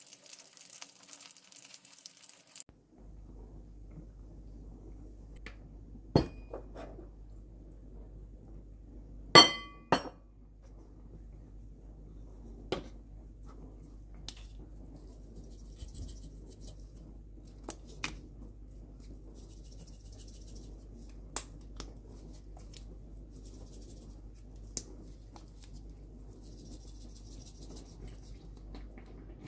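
Chicken pieces sizzling in hot oil in a frying pan for the first few seconds. Then glass and metal clinks of spice shakers and jars against a glass mixing bowl, the loudest a ringing clink about nine seconds in, with short bursts of spices being shaken out of shakers over the flour, over a steady low hum.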